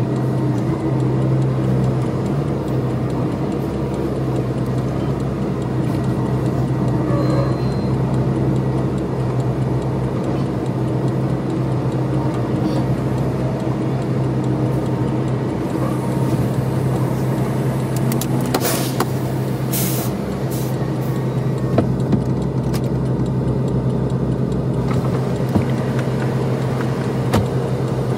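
Kenworth semi-truck's diesel engine idling steadily, heard from inside the cab, with a few short hisses and clicks in the second half.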